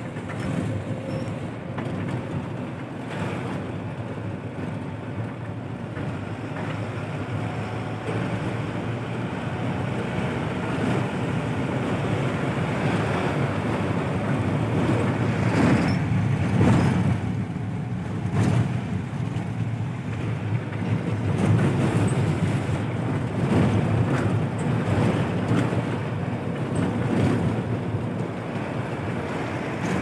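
Steady engine and road noise of a car driving, heard from inside the cabin, with wind buffeting the microphone at the open side window.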